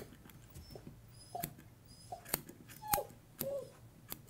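Tibetan Terrier puppy whimpering in about four short, high whines, some sliding down in pitch at the end, with a few sharp snips of grooming scissors.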